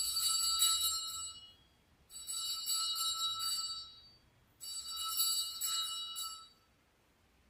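Altar bells rung three times for the elevation of the chalice at the consecration, each a jingling ring of several small high-pitched bells lasting about two seconds.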